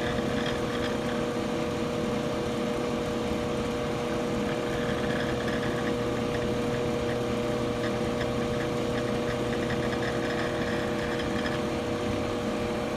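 Ammco 4000E brake lathe running under power as its electronic feed slowly moves the spindle along on automatic: a steady motor hum with a constant high whine.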